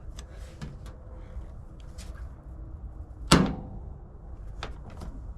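Truck side trim molding being pushed onto its body clips: a few light clicks, then one sharp, loud snap or knock about three seconds in as a section goes onto a clip.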